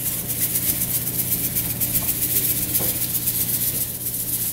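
Salt shaken from the spout of a Morton salt canister onto a raw beef brisket in a metal pan: a steady, gritty hiss of grains landing. A low steady hum runs underneath.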